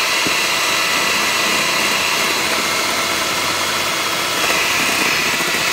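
Hamilton Beach electric hand mixer running steadily, its beaters whipping egg whites in a glass bowl at the soft-peak stage. The whir brightens slightly near the end.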